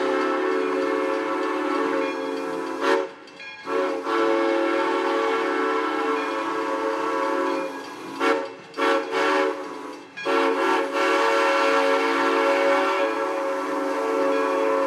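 Steam locomotive's whistle sounding a chord of several steady tones as the train departs: two long blasts, a few short toots, then another long blast.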